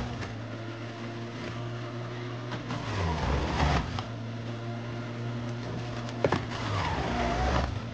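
Breville centrifugal juicer motor running steadily with a low hum while juicing purple cabbage. Twice, about three seconds in and again near the end, the hum drops lower and turns rougher as the motor slows under the load of the produce.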